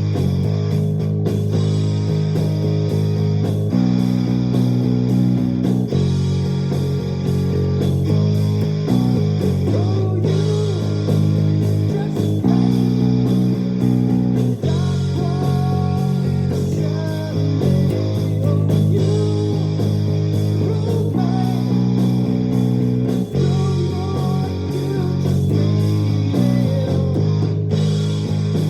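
Luxars S-KB20 travel mini electric bass being played: low notes shift every second or two, with sliding, gliding phrases higher up the neck, in a full musical texture.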